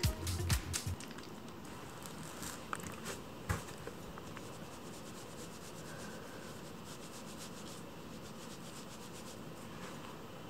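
Background music with a beat that ends about a second in, then quiet room tone with a few faint scratches and rubs from a kitten shifting on a cardboard scratching pad.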